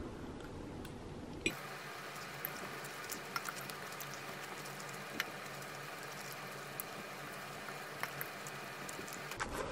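Faint steady hiss with scattered light clicks, including two close taps about eight seconds in as a metal fork works at a fried egg on a plate.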